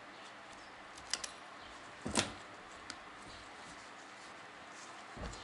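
Light metal clicks and knocks as a piston fitted with its rings is picked up and turned over by hand: a couple of quick clicks about a second in, a louder knock a second later, a small tick, and a dull thump near the end.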